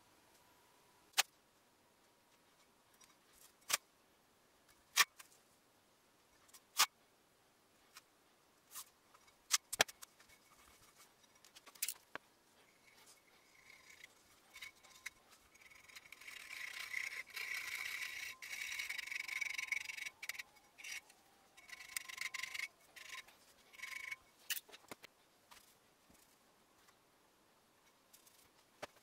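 A run of sharp metal clicks and clinks from steel parts of an iron pottery wheel being handled, then about ten seconds of uneven scraping and rasping, stopping and starting, as the turntable is worked by hand.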